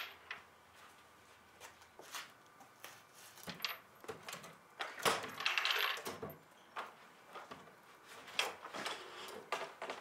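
Wooden desk being tipped over and set down onto a wheeled furniture dolly: scattered knocks and bumps of wood, with a longer scraping clatter about five seconds in and a few more knocks near the end.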